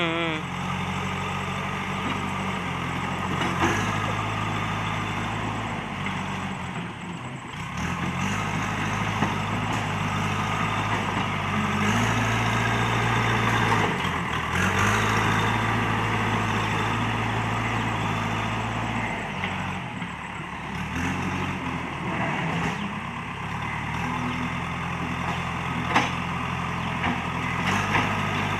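Diesel engine of a JCB backhoe loader running under working load, its note stepping up and down several times as the hydraulics work. There are occasional sharp knocks, one loud one near the end.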